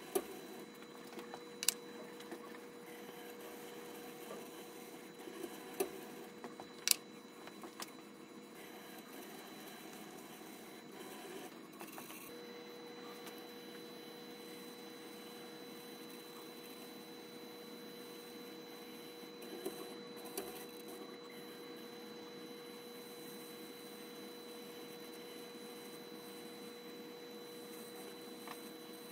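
Faint steady electrical whine and hum from an industrial robot arm's servo drives, with a few sharp clicks in the first seven seconds and two softer ones past the middle.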